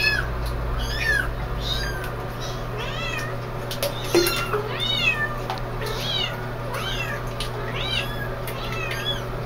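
Kittens mewing over and over in short, high-pitched cries, one or two a second, as they swim in a bathtub of water. A steady low hum runs underneath.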